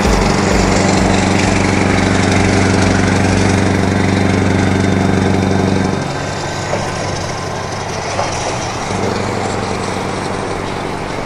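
Scania R500's V8 diesel engine running at a steady cruise, heard from alongside over road and wind noise. Its note drops away about six seconds in and comes back fainter near the end.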